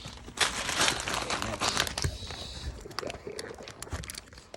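Packaging crinkling and rustling as it is handled, loudest in the first two seconds, followed by a scatter of small sharp clicks.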